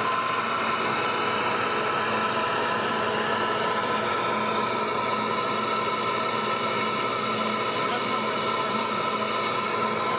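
Flow bench running steadily with a steady rush of air and a high whine, pulling air through a mass airflow sensor inlet at a 20-inch-of-water test pressure, flowing just under 400 CFM.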